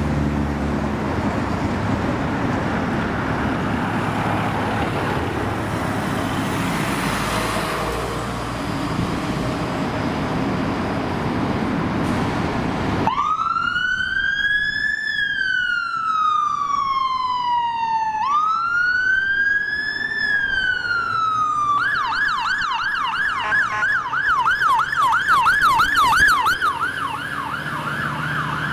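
Scania fire engine's diesel engine running, then about halfway its siren comes on: two slow wail sweeps, each rising fast and falling away slowly, followed by a fast yelp about three times a second as the turntable ladder turns out.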